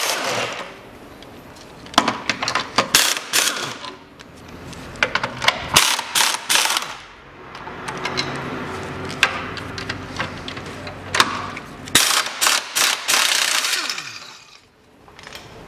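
Impact wrench hammering in several short bursts as it loosens the subframe bolts, with a steadier running sound between the bursts.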